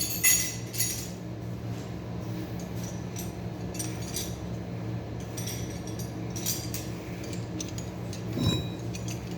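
Metal tools and parts clinking and tapping now and then during hand work on a truck's starter, over a steady low hum, with a heavier knock near the end.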